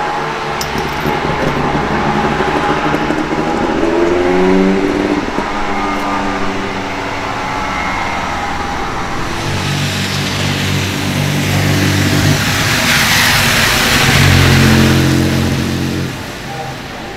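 Supercar engines accelerating with rising revs, then a car passing close, with a hiss of tyres on the wet road that swells and fades. The sound cuts off suddenly at the end.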